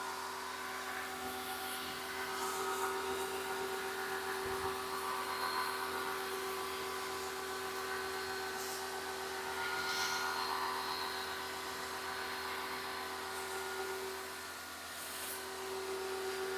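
Pressure washer running steadily with its 15-degree nozzle spraying, a constant machine hum under the hiss of the water jet.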